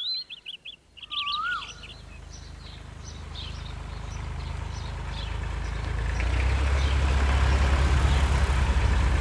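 Birds chirping and trilling, then a farm tractor's diesel engine rumbling low and growing steadily louder as it approaches, with faint bird chirps still going on above it.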